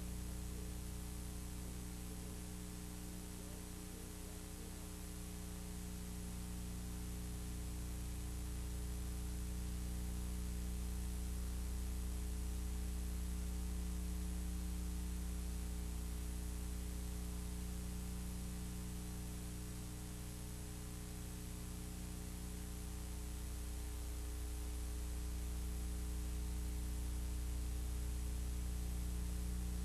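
Steady electrical mains hum on a VHS tape soundtrack: a low, even buzz with overtones over faint tape hiss, rising and falling slightly in level. Nothing else sounds.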